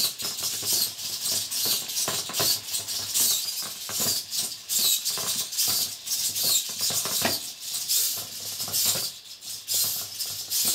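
Hobby servo motors of a small finger-type crawling robot working in quick, irregular strokes: a rattling, scratching run of buzzes and scrapes as the robot's arm drags it across a wooden floor.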